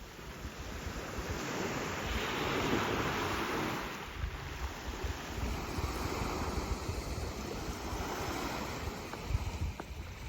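Sea waves washing in, the surf swelling and ebbing, with wind buffeting the microphone in low rumbling gusts.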